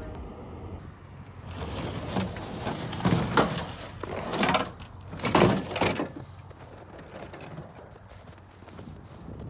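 Several scrapes and knocks from a wheeled dolly being handled in a snowy pickup bed, the two loudest about three and five and a half seconds in, then only quieter movement.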